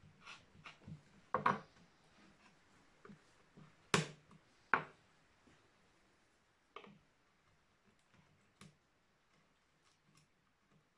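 Wood carving tools and hands knocking and clicking on a carved wooden relief panel: a few sharp knocks, the loudest about four and five seconds in, with smaller taps between.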